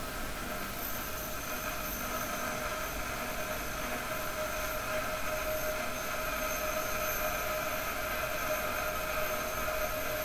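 Bench grinder running, with a small steel piece held against the spinning wheel and ground: a steady whine over a grinding hiss.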